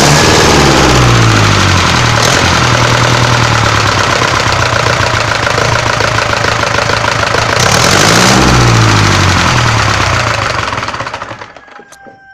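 Ursus C-360 tractor's four-cylinder diesel engine running, just after its injector nozzles were reconditioned and its injection timing set. It revs up briefly about eight seconds in, then is shut off and runs down to a stop near the end.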